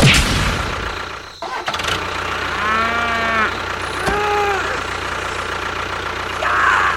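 A cow moos: one long, low call about three seconds in and a shorter, higher call a second later, over a steady engine hum.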